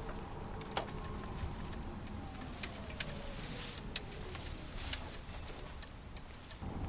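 Toyota Alphard driving at about 50 km/h, heard from inside the cabin: steady road rumble with four sharp clicks or ticks at uneven intervals. This is the abnormal noise the owner reports at that speed.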